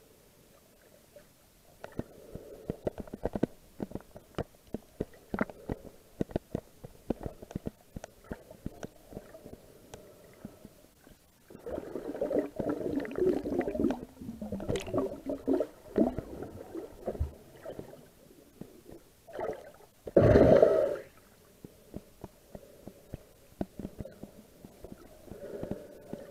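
Muffled underwater sound from water moving in a seagrass bed, heard through the camera: scattered irregular clicks and crackles, a stretch of gurgling water from about twelve to sixteen seconds in, and a loud short rush of water about twenty seconds in.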